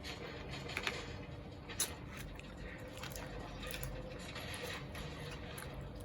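Two sharp clicks about a second apart, like tableware knocking on a plate, over a steady low room hum, with faint small handling and eating noises.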